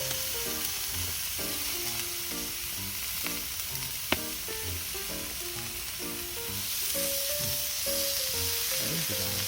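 Meat sizzling steadily as it fries, under background music, with one sharp click about four seconds in.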